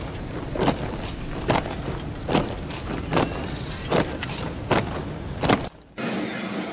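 Marching soldiers' boots striking stone paving in unison as a column goose-steps: a sharp stomp about every 0.85 s with lighter steps in between, over a low steady rumble. The stomping cuts off suddenly near the end.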